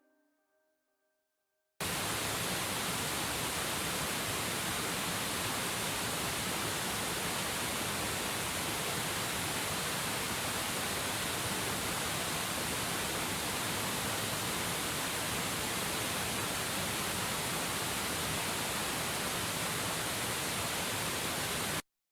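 Steady, even rushing hiss at a constant level, starting suddenly about two seconds in and cutting off suddenly near the end.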